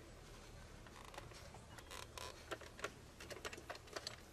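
Faint, irregular clicks and taps from a metal shoe-stretching machine as a shoe is worked on it and its screw adjusted to widen the shoe.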